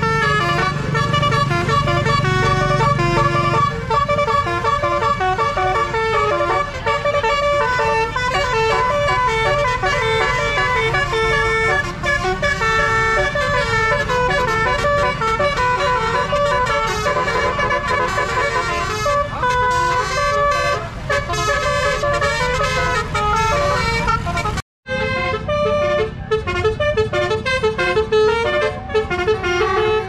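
Tour bus telolet air horn, a set of trumpet horns run by a Basuri melody module, playing a fast tune of changing notes. The sound cuts out briefly about three-quarters of the way through, then goes on.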